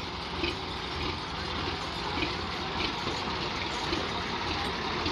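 Tractor diesel engines running steadily at a low, even pace.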